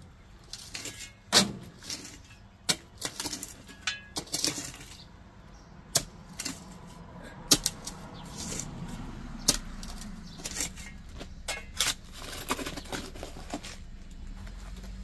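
Steel round-point shovel digging into packed soil at the edge of a concrete sidewalk: irregular sharp chops and scrapes of the blade, some with a metallic clink, the loudest about one and a half and seven and a half seconds in.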